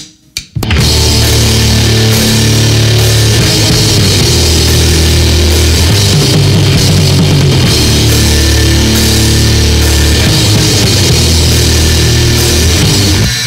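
Raw, lo-fi grindcore from a three-piece band: a couple of sharp stick clicks ending a count-in, then under a second in the full band crashes in with drums, cymbals and distorted guitar and bass in a dense, loud wall of sound. It drops back briefly near the end.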